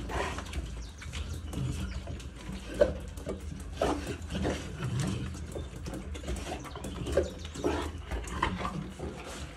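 Pit bull-type dogs making short vocal sounds and sniffing close up as they nose and lick a cat; the short sounds come about once a second.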